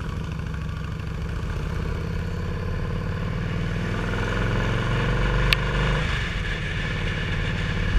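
Cruiser motorcycle engine running while riding, its pitch and loudness climbing steadily as it accelerates, then dropping suddenly about six seconds in. A single short click is heard a little before the drop.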